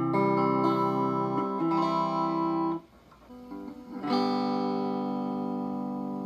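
Electric guitar played through the freshly repaired Marshall JCM800 Lead Series valve amplifier as a first playing test: two chords held about a second each, a short pause, then a chord struck about four seconds in and left ringing out, fading slowly.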